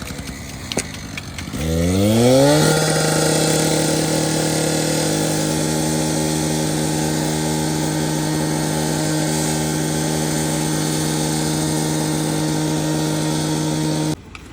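A small engine revs up over about a second, then runs steadily at high speed, and cuts off abruptly near the end.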